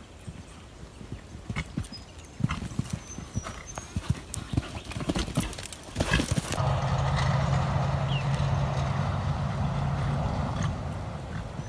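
Horse cantering on a sand arena, its hoofbeats growing louder as it comes up to a jump and lands close by about six seconds in. A steady low hum with a hiss follows for about four seconds, louder than the hooves.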